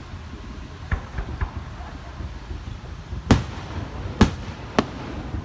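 Aerial firework shells bursting: a few fainter pops about a second in, then three loud, sharp bangs close together in the second half.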